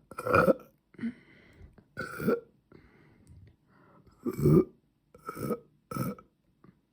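A young woman belching loudly, about five burps in a row with short pauses and quieter breaths between them.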